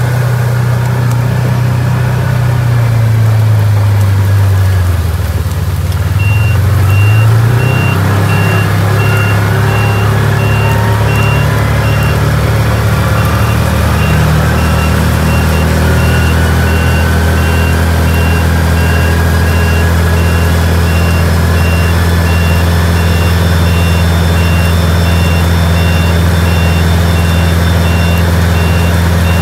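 Side-by-side utility vehicle's engine running while driving, a steady low drone that dips briefly about five seconds in and then holds even. A repeating high beep starts about six seconds in and keeps going.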